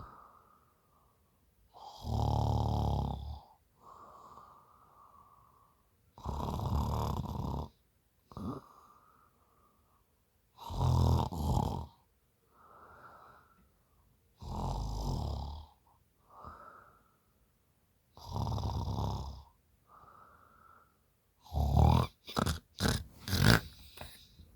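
A woman snoring in sleep after a few drinks: a loud snore on each in-breath about every four seconds, with quieter out-breaths between. Near the end comes a quick run of short, sharp, louder sounds.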